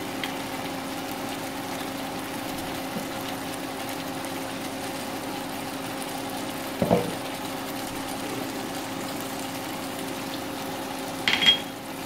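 Steady hum of a small motor, with a brief low thump about seven seconds in and a short clink near the end.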